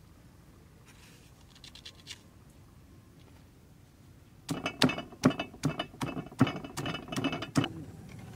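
Stone pestle pounding red chilies in a heavy stone mortar: about a dozen sharp knocks, some four a second, starting about halfway in, each with a short stony ring.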